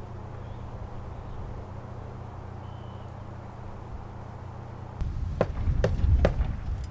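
Outdoor ambience with a steady low hum. About five seconds in, wind starts buffeting the microphone, and three sharp knocks come about half a second apart.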